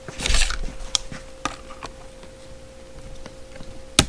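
Plastic blister packaging being cut open and handled to free a screwdriver: a brief crackle of stiff plastic, then a few sharp clicks and snips, the loudest near the end.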